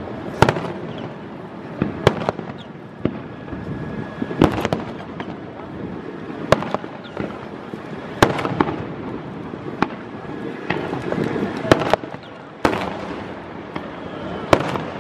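Aerial firework shells bursting overhead: about nine sharp booms, irregularly spaced one to two seconds apart.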